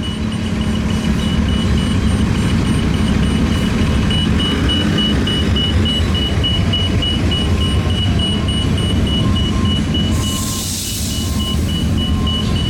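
Union Pacific coal train rolling past with a steady heavy rumble of wheels on rail, a grade-crossing bell's rapidly repeating high ding over it. A short hiss comes about ten seconds in.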